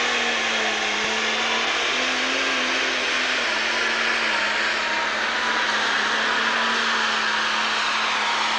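Super stock pulling tractor's turbocharged diesel engine running at full power under load as it drags the weight sled down the track. It is loud and steady, with an engine note that holds nearly level throughout.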